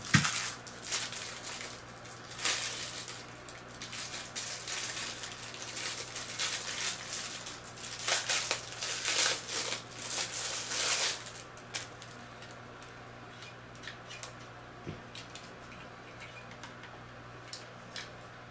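Clear plastic packaging bag crinkling and rustling as it is handled, in bursts for about the first eleven seconds, then only a few faint clicks.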